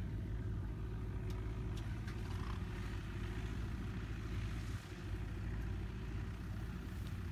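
Kubota farm tractor's diesel engine idling steadily, a low, even drone.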